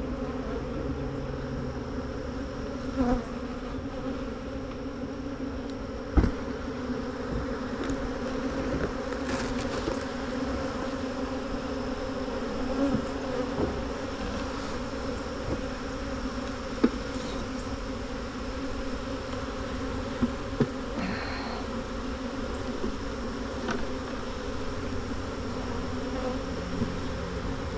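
Honeybees buzzing as a steady drone: many bees in the air around a nuc colony being moved into a new hive body. A few sharp knocks stand out from the buzzing, the clearest about six seconds in and again past the middle.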